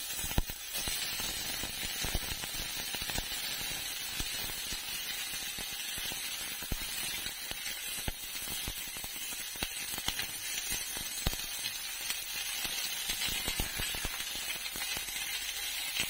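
Sliced red onions sizzling in hot cooking oil in a stainless steel frying pan: a steady frying hiss, with scattered light clicks as a utensil stirs them against the pan.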